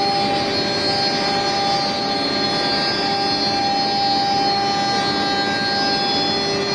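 CNC router's 7.5 kW spindle running while cutting plywood, a steady whine over a constant rushing noise from the cut and the dust extraction.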